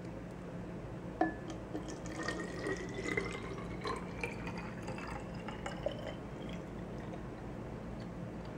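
Warm salt-water mixture poured from a plastic cup into a small plastic spray bottle. A light knock about a second in, then the liquid trickles in with a tone that rises steadily in pitch as the bottle fills, dying away about six and a half seconds in.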